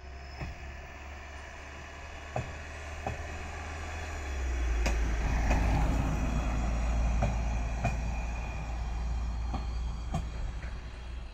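Asa Coast Railway dual-mode vehicle (a minibus running on rail wheels) passing along a viaduct. Its wheels click over the rail joints in evenly spaced pairs. A low running rumble swells as it goes by, a little before the middle, and then fades as it moves away.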